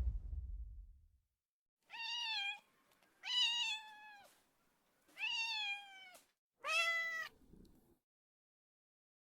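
A domestic cat meowing four times, each meow holding its pitch and dropping slightly at the end, the last one starting a little higher. A loud boom dies away in the first second before the meows.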